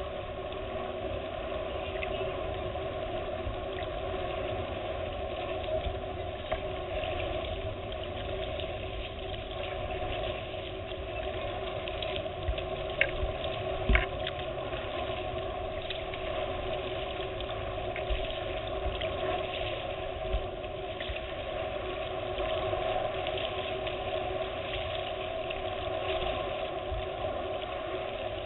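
Steady wash of wind and lake water on the microphone under a constant hum, with two short knocks about halfway through.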